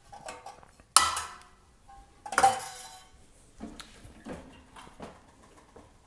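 Sheet-metal box clanking against the steel dies and fingers of a finger press brake as it is handled: two sharp metal clanks about one and two and a half seconds in, the second ringing briefly, then a few lighter knocks.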